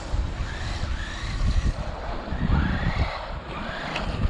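WLtoys 12429 RC buggy's 550-size electric motor whining, rising and falling in pitch several times as the throttle is worked, under heavy wind rumble on the microphone.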